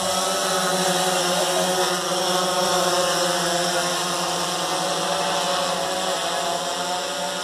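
DJI Phantom 3 Standard quadcopter's motors and propellers humming steadily in flight, a whine of several close pitches, a little quieter near the end.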